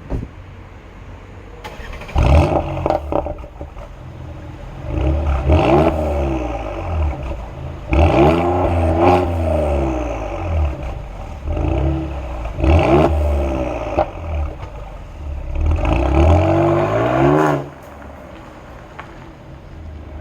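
Mercedes-AMG GLE 43's twin-turbo V6 revved about five times in short blips, each rising and falling in pitch, and settling back to a steady idle between them and near the end. A few sharp cracks from the exhaust come with some of the blips.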